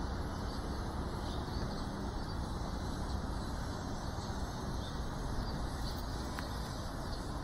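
Steady outdoor background noise, a low rumble like distant traffic, with faint high chirps scattered through it.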